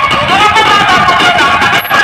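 Loud music played through a large DJ sound system during a sound check. It dips briefly near the end.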